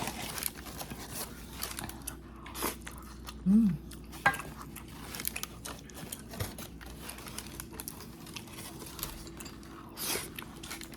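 A person chewing and biting food close to the microphone, with small scattered clicks of utensils and dishes, a brief hum of the voice about three and a half seconds in, and a louder clatter about ten seconds in.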